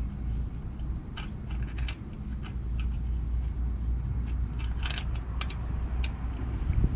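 Steady low rumble and high hiss, with scattered light metallic clicks and clinks from about four seconds in; the impact wrench is not running.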